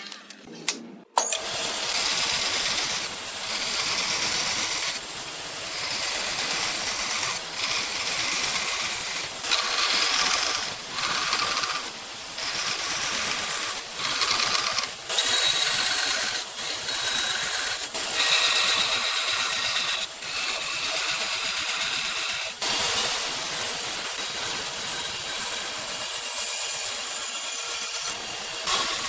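Power tool running on wood, starting about a second in, its noise swelling and dipping as the work goes on.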